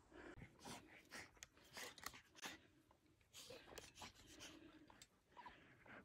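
Faint, irregular crackling and rustling of dry pine needles as a golden retriever rolls on its back in them.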